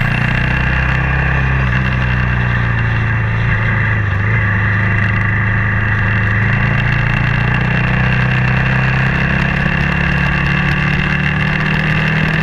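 BMW G650X's single-cylinder engine running at steady revs under way, its pitch shifting only slightly.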